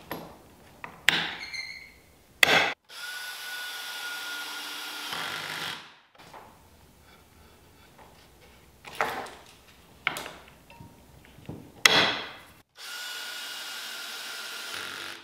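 Cordless drill driving pocket-hole screws to join face-frame stiles and rails, running steadily twice for a few seconds each time with a steady whine. Sharp knocks and clacks of the wooden pieces being set down and positioned come between the runs.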